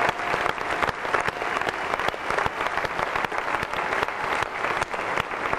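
Arena audience applauding steadily: many hands clapping at once.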